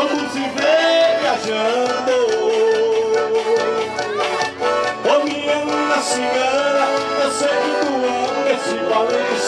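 Live forró band playing, an accordion carrying a sustained, bending melody over the steady band rhythm.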